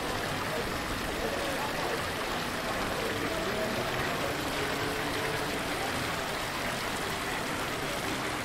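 Steady street ambience: an even rushing hiss under the faint murmur of many distant voices.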